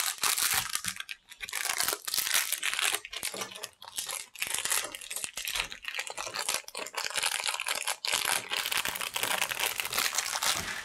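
Thin clear plastic bag of LEGO pieces crinkling as it is handled and torn open, in several bursts with short pauses.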